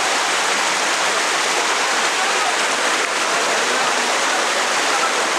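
Loud, steady rush of falling water at a waterfall.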